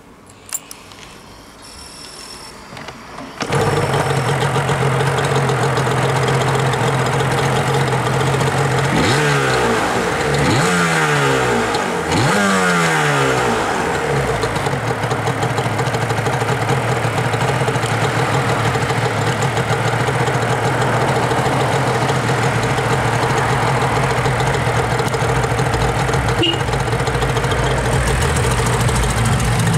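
Yamaha R1-Z's 250 cc two-stroke parallel twin on its stock exhaust starting about three and a half seconds in, then idling. Three quick throttle blips rise and fall between about 9 and 14 seconds before it settles back to a steady idle.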